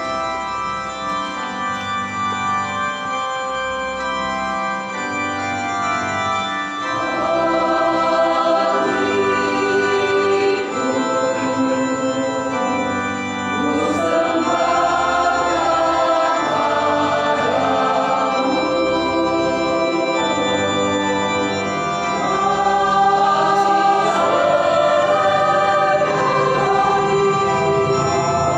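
Church choir singing a hymn with organ accompaniment. The organ plays alone with sustained chords at first, and the choir's voices come in about seven seconds in.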